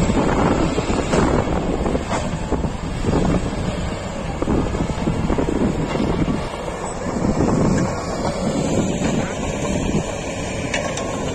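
Wind buffeting the microphone: a rough rushing noise that swells and eases in gusts.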